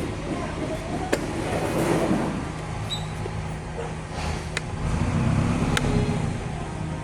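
Steady low hum of vehicle engines, swelling into a louder rumble from one vehicle about five seconds in, with three short sharp clicks scattered through it.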